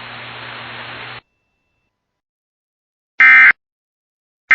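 Weather radio receiver's hiss and low hum cutting off about a second in. After a silence, two short, loud, screechy digital data bursts follow about 1.3 s apart, the second right at the end: the EAS/SAME end-of-message (NNNN) code that closes a NOAA Weather Radio warning broadcast.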